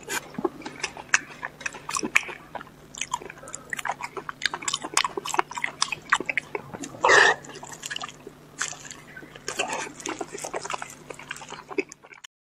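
Close-miked eating sounds: a person biting and chewing with many small wet clicks and smacks, and one louder, longer wet mouth sound about seven seconds in.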